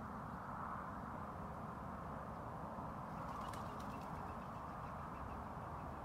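A bird calls in a quick run of short ticking notes for about two seconds, starting about halfway through, over a steady outdoor rushing noise.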